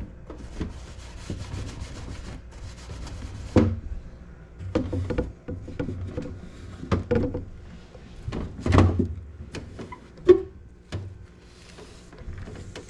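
Rubbing and scrubbing with irregular knocks and clunks as a refrigerator's shelves, drawers and containers are cleaned and handled; the sharpest knock comes about ten seconds in.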